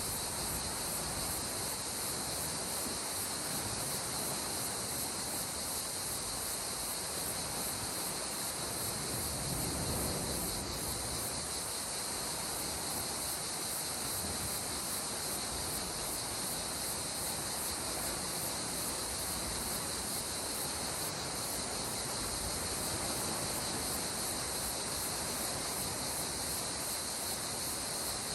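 Insects chirring in a steady high drone over a soft, even wash of sea water, with a slight swell about ten seconds in.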